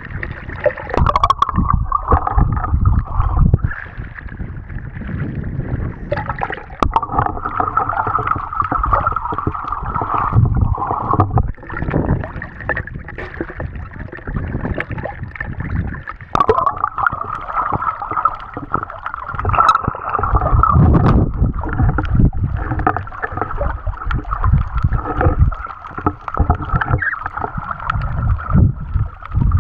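Sea water sloshing and splashing around a camera held by a swimming snorkeler, moving between the surface and just under the water, heard as churning water and muffled rumble in uneven surges.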